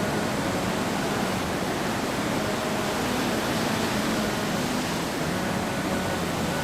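Heavy sea surf breaking, a steady, continuous roar of waves.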